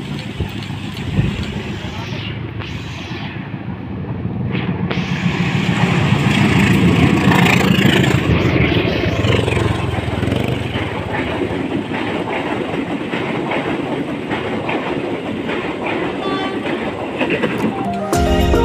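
KAI diesel-electric locomotive running hard as it approaches and passes close by, its engine rumble swelling to a peak, then the passenger carriages rolling past with the wheels clacking over the rail joints. Music starts at the very end.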